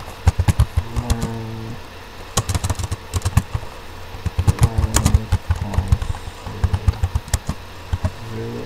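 Computer keyboard typing in quick bursts of keystrokes, with short pauses between bursts.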